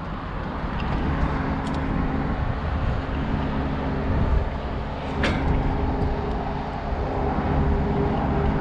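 An engine running steadily, building up over the first second, with a single sharp metallic click about five seconds in.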